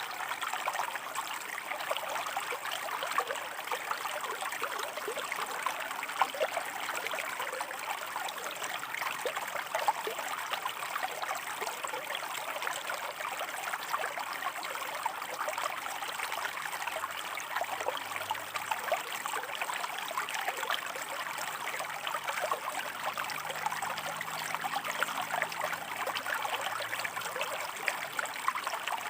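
Shallow river water running over rocks: a steady, even rush flecked with small quick splashes and trickles.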